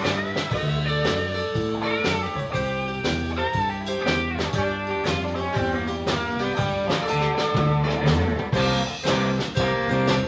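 Live blues band playing, the guitar to the fore with notes that bend in pitch, over a steady beat.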